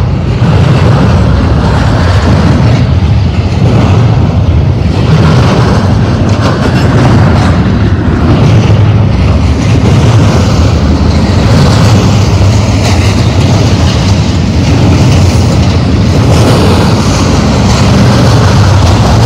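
Double-stack intermodal freight train's well cars rolling past close by: a loud, steady rumble of steel wheels on rail.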